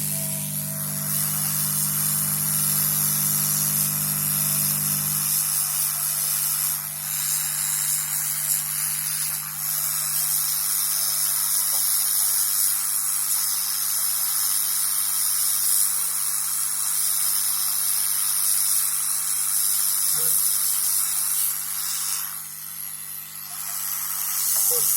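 Hot air rework station blowing a steady hiss; a low hum under it stops about five seconds in, and the hiss dips briefly near the end.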